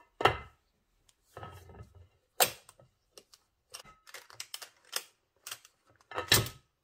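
Irregular clicks and knocks of a metal springform cake tin being handled on a ceramic plate as its side latch is worked open, with three louder knocks among them.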